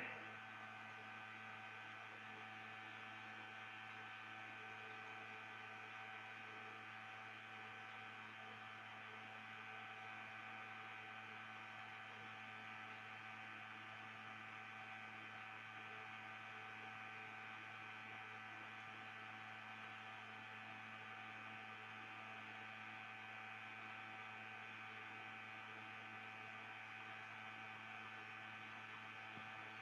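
Faint, steady electrical hum with several higher steady whining tones above it, unchanging throughout; no other sound.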